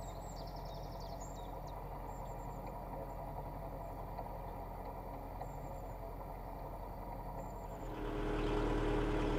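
Narrowboat engine running steadily at cruising pace, a low even thrum, with small songbird chirps over it in the first second or so and a few more later. About eight seconds in, a louder steady hum with a held tone takes over.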